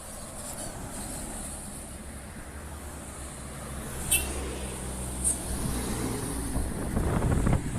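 Large diesel tour bus engine running close by, growing louder and loudest near the end, with two short high hisses about four and five seconds in.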